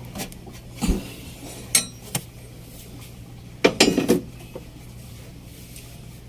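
Metal tools and parts clinking and knocking together in irregular strikes, a cluster of them about two-thirds through, over a steady low hum.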